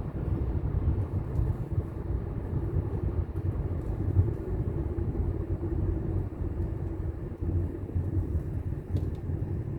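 Steady low rumble of a vehicle on the move, heard from on board as it travels along the road.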